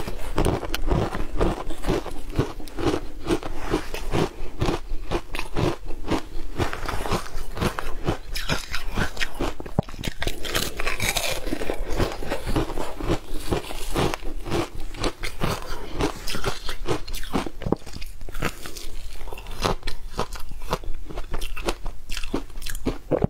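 Frozen ice being bitten and chewed: a steady run of crisp crunches, several a second.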